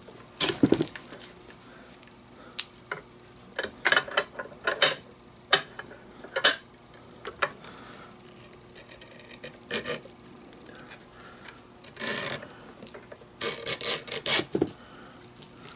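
Leather glove lace being handled and pulled through a small metal lace tool clamped in a vise: scattered clicks and knocks of metal and lace, with rasping rubs of lace drawn through the tool about twelve seconds in and again around fourteen seconds.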